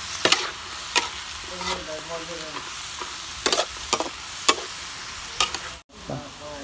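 Duck pieces stir-frying in a large steel wok, sizzling steadily, while a metal spatula scrapes and clacks against the wok several times. The sound drops out briefly near the end.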